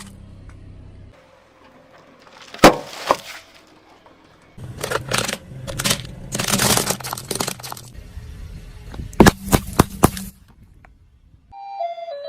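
A car tyre rolls over and crushes brittle objects, with sharp snaps and stretches of dense crackling and breaking, and a low rumble under parts of it. A short tune starts near the end.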